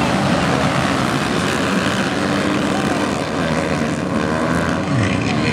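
A pack of Kawasaki KLX dirt bikes, single-cylinder four-strokes, revving hard together as they ride off the start, with several engine pitches rising and falling over one another.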